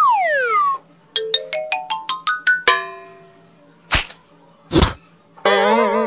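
A string of cartoon sound effects: a falling whistle, then a quick rising run of about ten short, bell-like notes, two short swishes, and a wobbly, warbling tone near the end.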